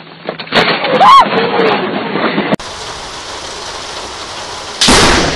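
A close lightning strike's thunderclap hits suddenly about half a second in, with a person's short cry just after. Then steady heavy rain, broken near the end by another sudden, loud thunderclap from a nearby strike.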